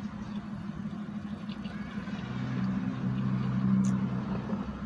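A car engine running close by: a steady low hum that swells about two seconds in and eases off again near the end.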